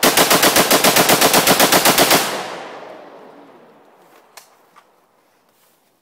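AK-pattern rifle firing one long fully automatic burst of about twenty rounds, roughly ten shots a second, for just over two seconds. Its echo dies away over the next two seconds.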